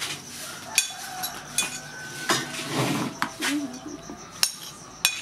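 Metal spoon clinking and scraping against a ceramic plate as leftover fried rice is scraped off it, with a handful of separate sharp clinks spread a second or so apart.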